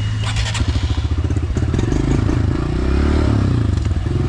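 Dirt bike engine running at low revs, its pitch rising and falling a little, with a brief clatter about half a second in.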